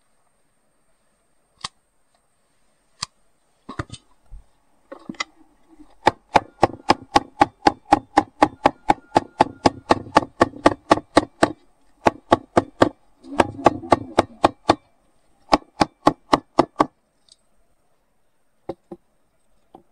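Hand hammer tapping a thin sheet-metal collar wrapped around the wooden handle of a pharsa axe, in quick light metallic strikes at about four a second. A few single taps come first, and the run of strikes breaks off briefly twice before stopping.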